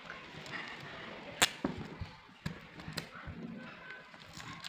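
Foil trading-card booster packs handled and squared into a stack on a table: a sharp tap about a second and a half in, then several lighter taps.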